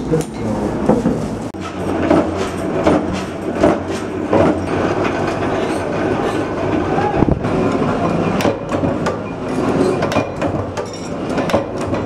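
Mechanical power presses running, a steady rumble with irregular clattering strokes as the dies cut steel strip.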